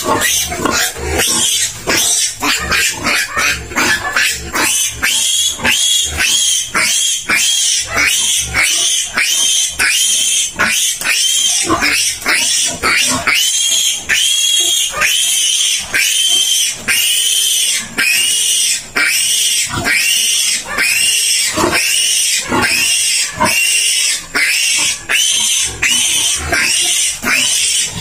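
Piglet squealing in distress while held up by its hind legs: loud, high squeals, each rising and then falling in pitch, about three every two seconds without pause.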